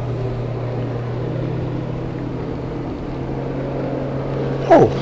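A boat motor running steadily with a low, even hum. Near the end there is a brief loud vocal sound that falls steeply in pitch.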